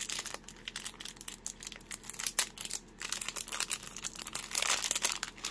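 Plastic bead packaging crinkling and crackling as it is handled and opened, with a denser stretch of crackling about three seconds in.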